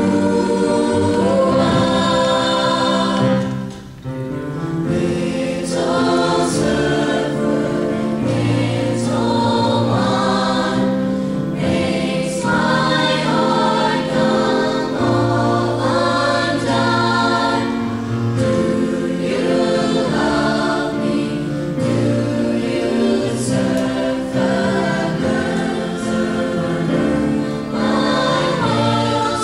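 Mixed youth choir of boys and girls singing a slow pop ballad in harmony, with a brief break between phrases about four seconds in.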